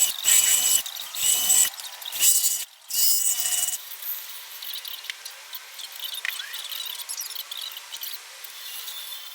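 A shop tool working a piece in four loud passes, each with a steady high whine, over the first four seconds; quieter rubbing and scraping follow.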